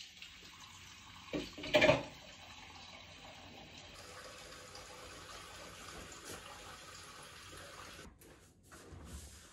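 A beverage can of lemon radler is cracked open with a sharp pop and rush about two seconds in. A steady fizzing hiss follows.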